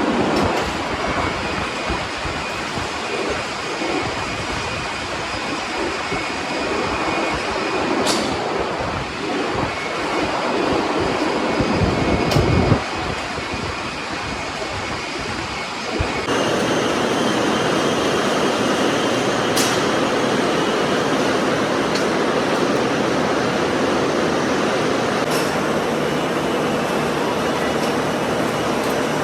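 Steel rebar mill machinery running with metal clattering and squealing, and a few sharp metal knocks, the loudest about twelve seconds in. About halfway through the noise changes abruptly to a steadier mechanical hum.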